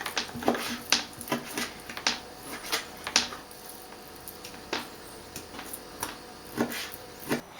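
Irregular sharp clicks and knocks of a carbon-steel bushcraft knife and kitchen utensils against a board and cookware, close together in the first three seconds and sparser after.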